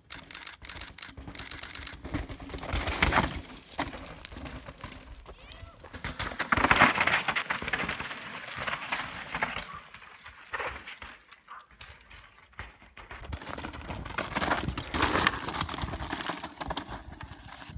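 Downhill mountain bikes tearing past on a dry, loose, rocky dirt trail: tyres skidding and crunching through gravel and dust, with clattering from the bike. There are louder passes about three, seven and fifteen seconds in.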